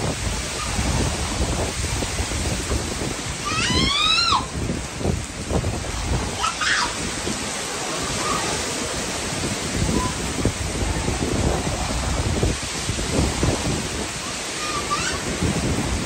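Heavy rain pouring steadily, with strong wind gusting through the trees and buffeting the microphone in low rumbles. A short, high rising call cuts through about four seconds in.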